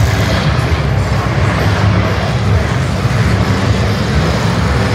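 Engines of several demolition derby cars running together as they drive around a dirt arena, a loud steady din of engine noise.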